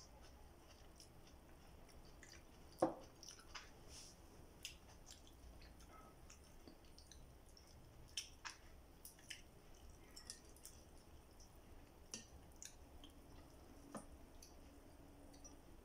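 Quiet eating by hand: soft chewing and mouth sounds with small clicks and squishes of fingers picking at fried fish and rice. A sharp knock about three seconds in, as a bottle is set down on the table.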